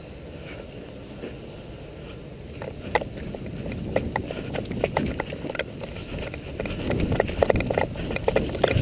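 Footsteps and gear knocks of an airsoft player moving across dirt and gravel. There is a low steady rumble at first, then from about three seconds in the irregular steps and knocks start and grow louder.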